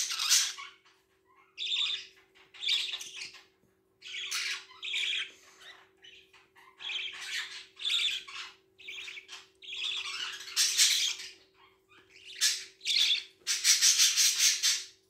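Pet budgerigars squawking and chattering in a string of short, harsh, buzzy bursts with brief pauses between them; the loudest calls come near the end.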